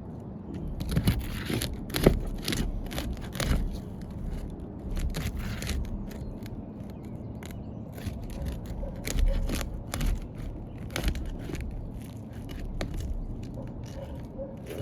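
Asphalt roof shingles being pried loose with a tool worked under them: irregular scraping, crackling and tearing as the sealant strips break free.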